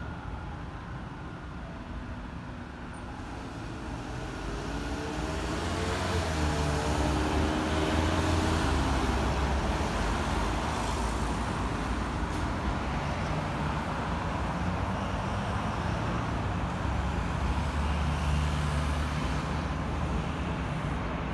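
Road traffic: a car drives past and a city bus runs with a low engine rumble. Just before this, an elevated subway train is heard crossing overhead.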